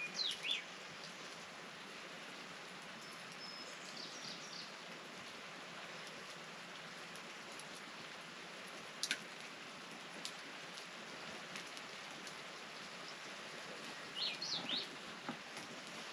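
Steady rain falling, with a few short bird chirps scattered through it.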